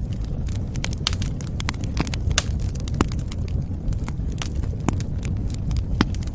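Wood fire crackling in a fireplace: irregular sharp snaps and pops over a steady low rumble of the burning logs.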